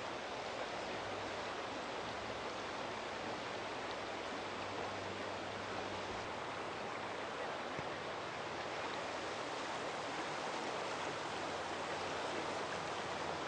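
Steady, even rush of a flooded river running high and fast, swollen by a water release from the dam upstream.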